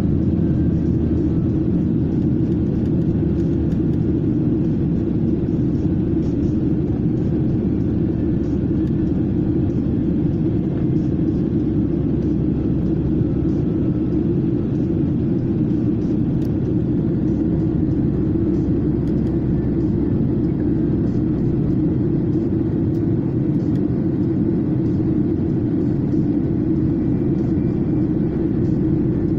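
Cabin noise inside a SpiceJet Boeing 737 in flight: the steady low rumble of the jet engines and the air rushing past the fuselage, holding at one level throughout.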